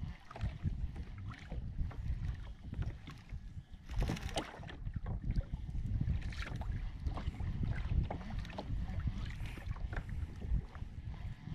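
Small waves slapping and trickling against a kayak's hull in many short irregular splashes, over a steady low rumble of wind on the microphone.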